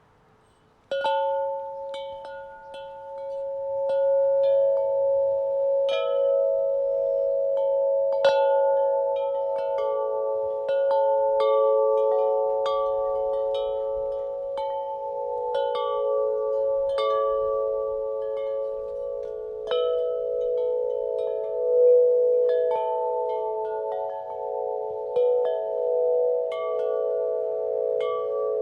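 Wind chimes struck by the wind. They start about a second in, then ring in irregular strikes once or twice a second, each note ringing on so that several pitches overlap in a lingering cluster.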